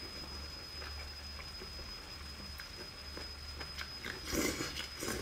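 Mouth noises of eating skewered baby cuttlefish: faint wet chewing with small clicks, then a louder bite about four seconds in.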